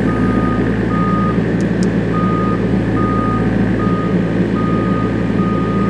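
Bobcat E63 compact excavator's diesel engine running with its travel alarm beeping about once a second, the sign that the tracks are engaged and the machine is tramming.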